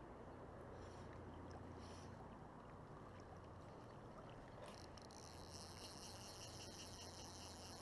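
Quiet river ambience, with a faint steady high buzz that starts about five seconds in.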